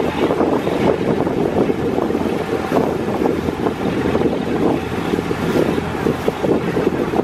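Passenger boat under way, its engine running steadily, with wind buffeting the microphone.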